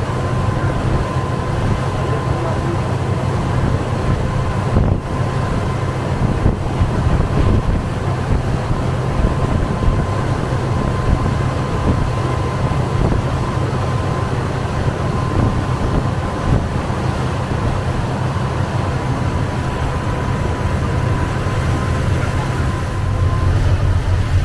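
A tour boat's engines running steadily: a low drone with a faint, even whine above it and a constant rushing noise over the top.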